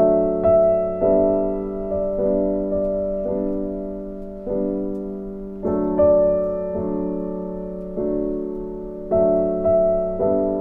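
Background music: slow, gentle solo piano. Notes and chords are struck roughly every half second and left to fade.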